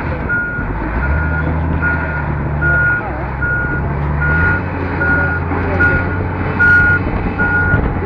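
Wheel loader's reversing alarm beeping steadily, about three beeps every two seconds, over its diesel engine running. The engine revs up about a second in and eases back after about four and a half seconds as the machine works against a mud-brick wall.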